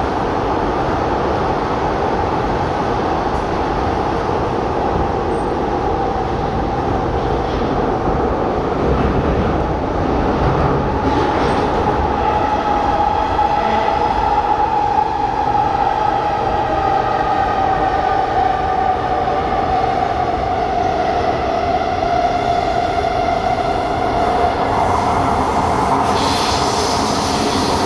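Inside a C751B metro train car running at speed: steady wheel and track rumble with a whining tone that rises and falls gently through the middle. A brighter, higher noise joins near the end.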